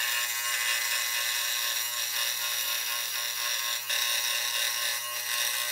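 Benchtop scroll saw running steadily, its reciprocating blade cutting a curved shape out of thin plywood; the sound dips briefly about four seconds in.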